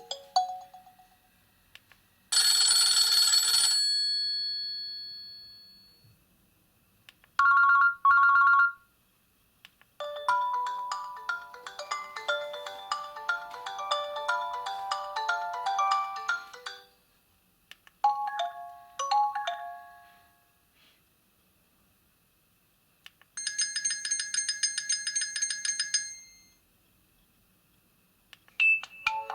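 Nokia 6300 4G phone playing a run of short ringtone and alert-tone previews through its small speaker, one after another with brief silences between: a bright chime that fades out, two quick beeps, a short melody, another brief tune, then a fast pulsing high alert. A new tone starts near the end.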